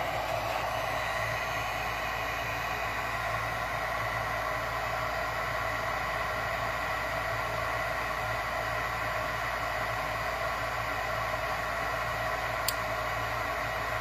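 Lennox 90% gas furnace's draft inducer fan running with a steady whir and a faint hum. A single sharp click comes near the end as the control board switches 24 volts to the gas-valve circuit.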